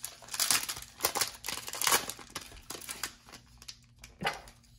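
A foil trading-card pack being torn open, its wrapper crinkling and crackling in quick bursts for about three seconds, then a single short tap about four seconds in as the cards come out.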